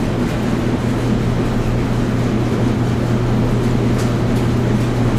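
Washing machine and clothes dryer running together: a steady low hum over an even rumbling whirr, with a faint tick about four seconds in.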